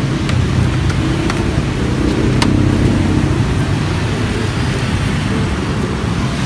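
Steady low rumble of road traffic passing the roadside stall, with a few light clicks from the scoop working in the bowl.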